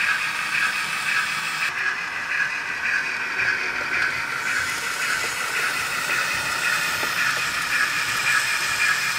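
Z-scale model train running on the layout track: a steady whir from the small electric motor and the wheels.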